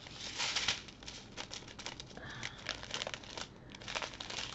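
Small plastic bags of diamond-painting drills crinkling and rustling in irregular bursts as they are handled and folded up on their taped strip.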